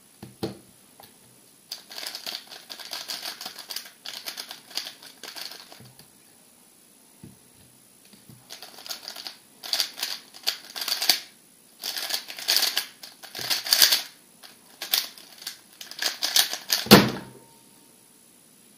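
Magnetic plastic 3x3 speedcube (MoYu RS3 M 2020) being turned fast, its layers clacking in rapid clusters with short pauses between them. It ends in one loud thump at about 17 s as the cube is set down on the timer mat.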